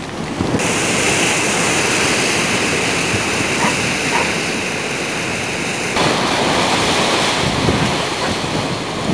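Storm surf breaking on a rocky, log-strewn shore, a loud continuous roar with wind buffeting the microphone. The sound changes abruptly about half a second in and again about six seconds in, gustier in the last few seconds.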